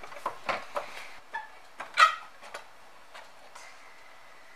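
A few light clicks and knocks of plastic toy-kitchen pieces being handled, the loudest about two seconds in, then quiet.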